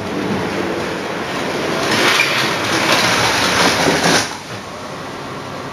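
Model railway train running on the track, its wheels and motor rattling, growing louder and then cutting off suddenly about four seconds in.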